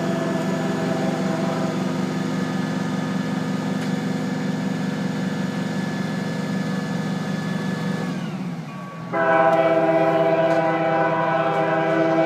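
Aerial ladder truck's engine and hydraulics running steadily while the ladder is raised; the pitch drops about 8 seconds in. About a second later a loud, steady horn-like tone starts abruptly and holds to the end.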